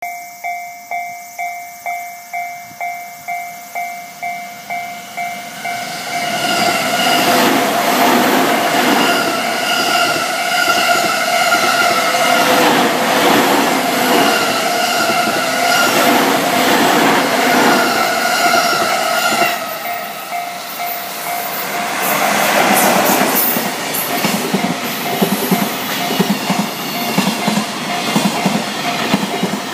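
Japanese level-crossing warning bell dinging about twice a second. About six seconds in, an E231-series electric commuter train runs past at speed. From about twenty seconds in, a container freight train follows, its wheels clattering quickly over the rail joints near the end, with the crossing bell ringing through it all.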